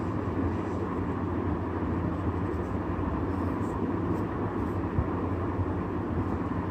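Steady low background hum with a hiss over it, unchanging throughout.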